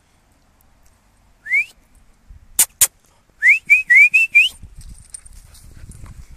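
A person whistling to call a dog: one rising whistle, two sharp clicks, then a quick run of about five short rising whistles. A low rumble of the microphone being handled follows near the end.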